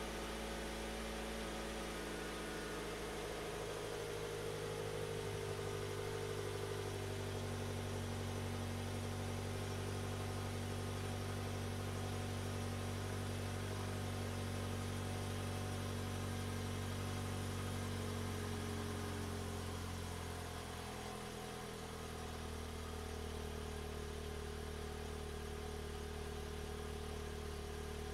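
2018 Toyota C-HR's engine idling steadily, heard at the exhaust tailpipe. The idle note dips and settles slightly lower about twenty seconds in.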